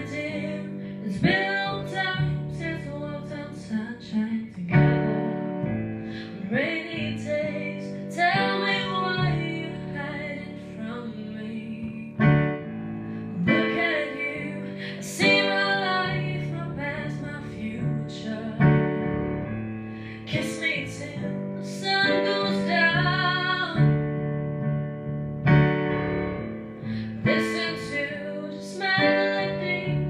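A woman singing a slow original pop ballad over piano and guitar accompaniment, in phrases of a few seconds each.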